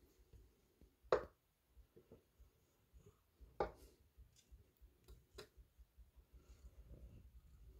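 A few sharp clicks or taps over faint room tone: one about a second in, one at about three and a half seconds, and two close together around five seconds. A faint low rumble builds near the end.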